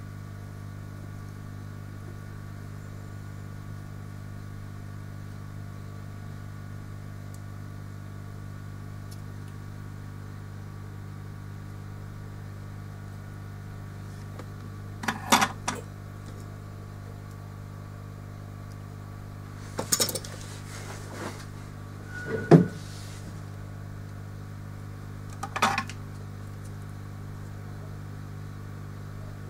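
Steady low electrical hum, with four short clicking clatters of small hard objects being handled in the second half, the third the loudest.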